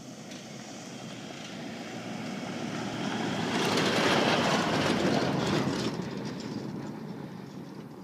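A four-wheel drive towing a camper trailer drives past on a sandy track: engine and tyres on sand grow louder, are loudest as it passes about four seconds in, then fade away.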